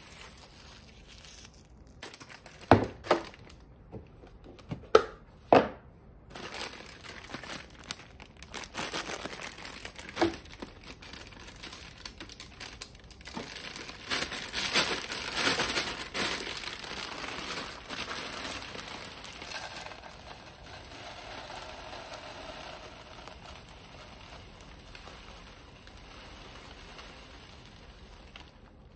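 Four sharp knocks in the first few seconds, then a thin plastic bag of rolled oats crinkling as it is handled and opened. Near the end, a softer, steadier hiss of oats pouring from the bag into a plastic storage container.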